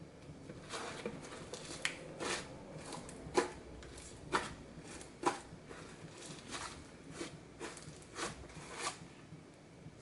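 Fluffy glitter slime being stretched, folded and squeezed by hand, giving a string of short sharp pops and clicks, about two a second, as trapped air is pressed out.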